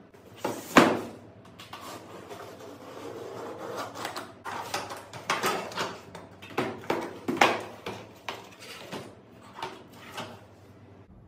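Hand work on the fittings of a sliding glass door file cabinet: a sharp knock about a second in, a stretch of rubbing, then a run of irregular clicks and knocks.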